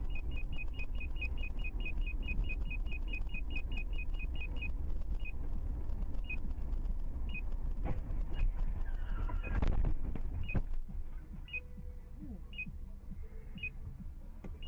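Car crash heard from inside a car through a dashcam: steady road and engine rumble with a high electronic beep in the cabin, about five beeps a second at first, slowing to about one a second after about five seconds. A sharp bang about eight seconds in as two cars collide ahead, then a louder crunching stretch of impact noise around nine to eleven seconds, after which the rumble drops lower.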